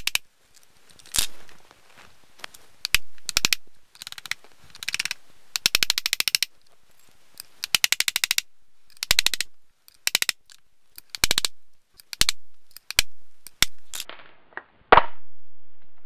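Metal differential parts of a Wheel Horse transmission (pins, pinion gears, axle shafts) clicking and clattering as they are worked into the cast-iron housing by hand, heard as short runs of rapid clicks and knocks, sped up fourfold.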